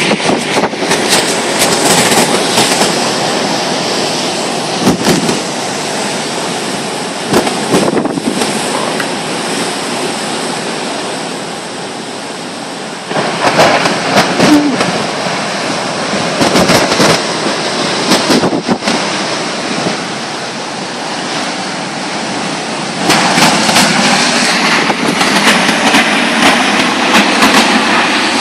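Heavy storm surf crashing onto a rocky shore, a loud continuous roar of breaking waves and spray that swells sharply about halfway through and again near the end as big waves break close by. Gusty wind buffets the microphone throughout.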